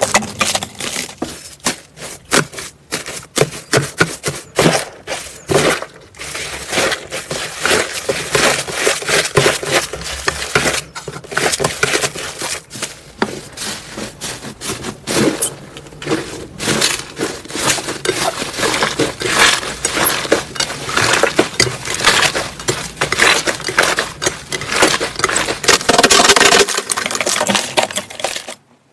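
Slime being squished and poked by hand, giving dense, irregular crackling and popping clicks.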